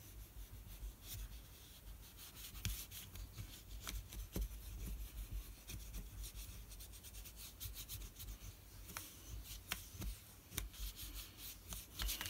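Bone folder rubbing over cardstock in quiet, irregular scratchy strokes, tracing around stacked paper rings underneath to press their outline into the card.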